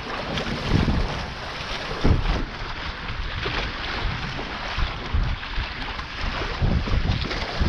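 Water rushing and splashing past a Taipan 5.7 catamaran's hulls as it sails at about 16 km/h, with wind buffeting the action-camera microphone in low rumbling gusts several times.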